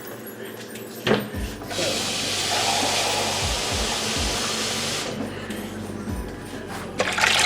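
Water running from a kitchen tap into a pot for about three seconds, with knocks of cookware before and after.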